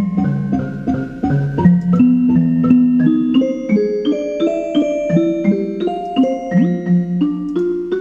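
Computer MIDI synthesizer playing a quick run of single notes, about three a second, first with a music-box sound and then a xylophone sound, the pitch stepping generally higher. Each note is one day's UV-B reading turned into a pitch.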